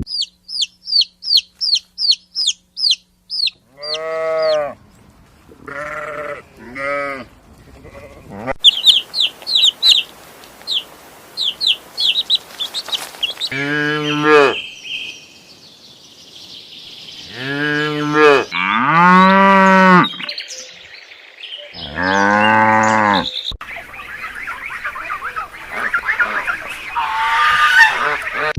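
A run of animal calls edited one after another. Rapid trains of short, high bird chirps alternate with several long, wavering calls with many overtones.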